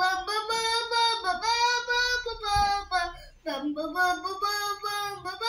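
A young girl singing alone, unaccompanied, in long held notes, with a short break about three and a half seconds in.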